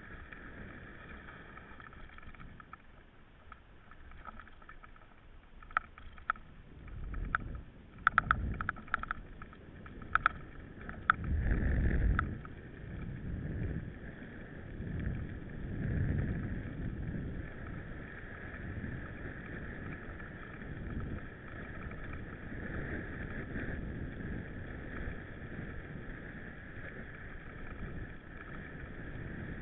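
Mountain bike being ridden, heard from a bike-mounted camera: a steady rush of riding noise with surges of low wind rumble on the microphone, and a run of sharp clicks and rattling knocks from the bike over rough ground about six to twelve seconds in.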